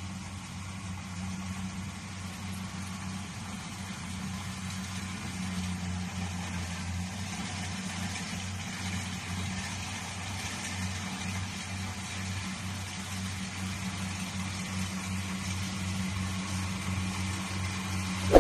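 Combine harvester's engine running steadily during rice harvesting, an even low hum.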